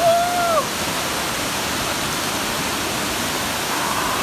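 Kawasan Falls' wide cascade pouring into the pool, a steady rush of falling water. Right at the start a short high-pitched voice call rings out over it, dropping in pitch as it ends.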